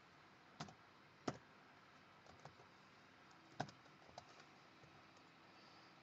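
Faint keystrokes on a computer keyboard as a number is typed in: a few sharp separate taps, the loudest about half a second, just over a second and three and a half seconds in, with lighter taps between.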